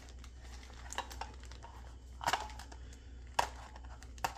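Smart lock parts and packaging being handled: a few scattered clicks and light knocks with faint rustling, over a low steady hum.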